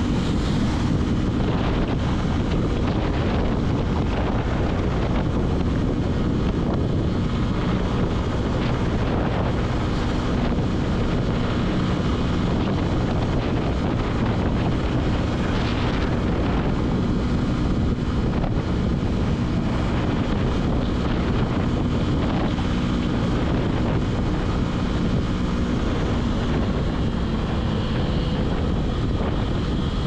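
Motorcycle engine running steadily at cruising speed, with heavy wind noise buffeting the microphone.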